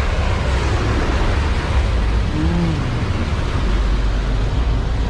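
Heavy rain pattering on an umbrella held just over the microphone, an even hiss with a steady low rumble. A brief low voice-like hum about two and a half seconds in.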